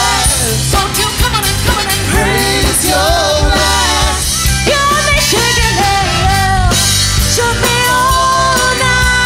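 A live pop-rock dance band playing, with drum kit, bass and guitar under several singers. The voices hold long notes near the end.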